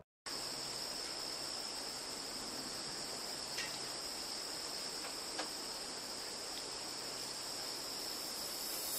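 Steady, high-pitched chirring of insects over a faint hiss, with a couple of faint ticks in the middle.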